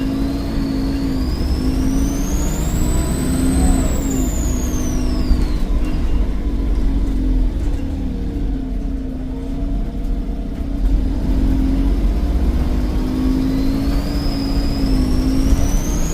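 Volvo D7E 7.1-litre turbodiesel pulling a Volvo B7RLE bus, with a high turbocharger whistle that rises as it spools up, falls away after about five seconds, then rises again near the end over the steady engine drone.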